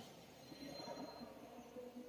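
Very quiet room tone with no distinct event.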